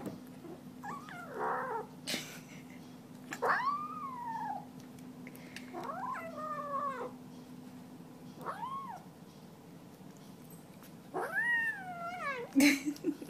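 A kitten at its food bowl giving about five drawn-out whining meows, each rising then falling in pitch, as it eats: food-guarding vocalising. A sharp knock near the end.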